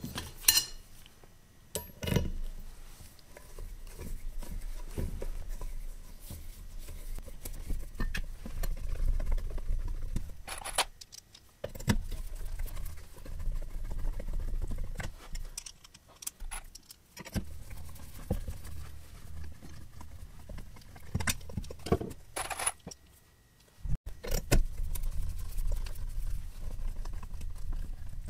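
Screws being turned in by hand with a long screwdriver through an aluminum angle rail into plywood. The turning comes as several grinding stretches of a few seconds each, one screw after another, broken by sharp metallic clicks.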